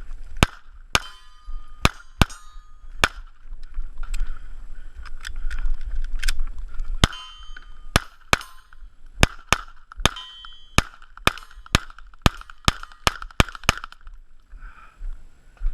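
Gunshots at a shooting range: about two dozen sharp shots, irregularly spaced and coming faster near the end, a few followed by a brief ring.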